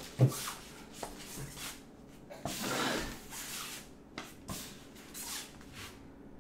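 Handling noises from unpacking a boxed car seat: a sharp thump just after the start, a rustling scrape about two and a half seconds in that lasts about a second, then a few light clicks and knocks.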